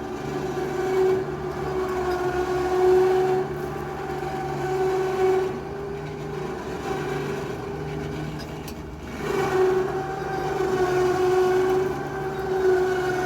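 Two-stroke chainsaw running under load through a large log, its engine note wavering and dipping as it bogs in the cut about two-thirds of the way in. The chain is getting dull, which makes the cut slow.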